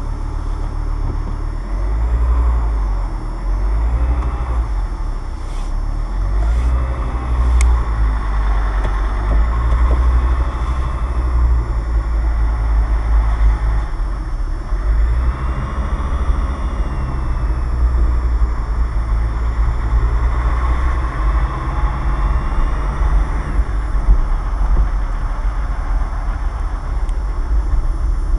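Steady low rumble of a car's engine and road noise heard from inside the cabin as the car drives slowly, picked up by a windshield dashcam's microphone.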